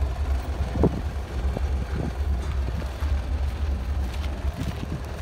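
Wind blowing across a phone microphone: a constant low rumble with uneven gusts flaring through it.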